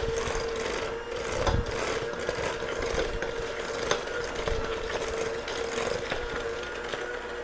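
Electric hand mixer running with a steady motor whine, its beaters churning a thick creamed butter, sugar and egg-yolk batter and clicking now and then against the stainless steel bowl.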